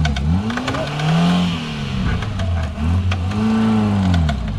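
Suzuki Jimny 4x4's engine revving up and dropping back again and again, about three rises and falls, as it claws up a muddy slope. There is some scattered clatter.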